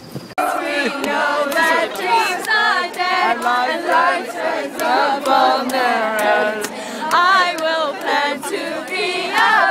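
A crowd of fans singing together loudly, many voices at once, cutting in suddenly a moment in, with a steady run of sharp beats through the singing.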